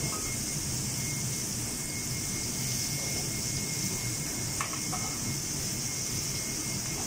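Steady commercial-kitchen noise: a low fan hum under a continuous high hiss, with one short clink about four and a half seconds in.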